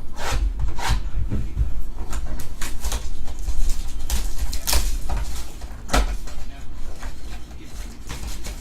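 Hands opening and handling a trading card box and its packs: irregular crackles, scrapes and taps of cardboard and wrappers, the loudest a little before five seconds in, over a low handling rumble.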